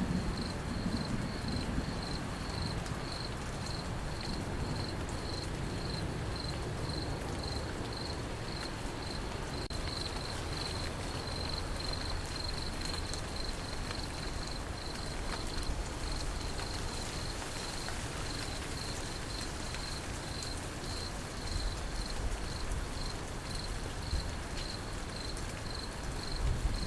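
Crickets chirping in a steady, even pulse over a soft wash of rain.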